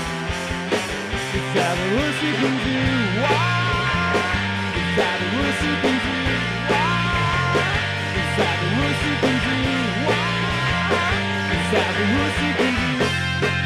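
Live rock band playing: two electric guitars, bass and drum kit, with a man singing lead into the microphone from about two seconds in until near the end.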